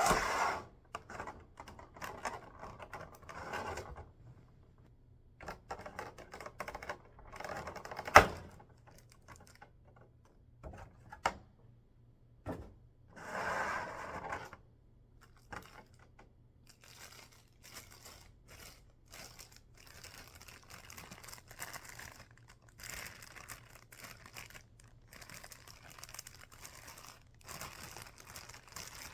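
Packaging being unwrapped by hand: plastic and paper rustling, crinkling and tearing, with scattered small clicks and knocks, and one sharp knock about eight seconds in that is the loudest sound.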